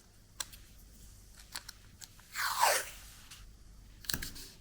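Washi tape and a 3D-printed plastic washi cutter being handled: a few light clicks and taps, and about two and a half seconds in one short rasp falling in pitch as tape is pulled and torn against the cutter.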